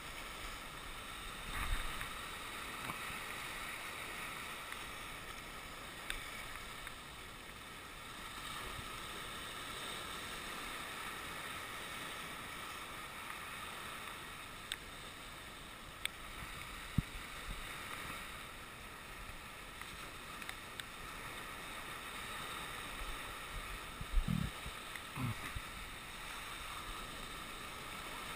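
Small sea waves washing and breaking over shoreline rocks, a steady rush of surf, with a few faint clicks and two short low bumps near the end.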